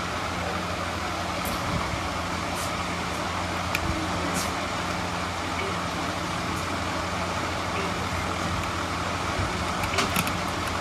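Steady street traffic noise with a low engine hum and a few faint clicks.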